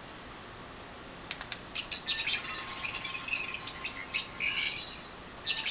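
Thirteenth Doctor sonic screwdriver toy: a couple of button clicks about a second in, then its electronic warbling sound effect in uneven bursts, heard as its diagnostic sweep mode.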